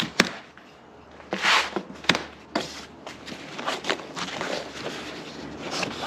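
Irregular knocks, clunks and short scrapes of parts and packaging being handled while a boxed truck bed rack is unpacked and laid out.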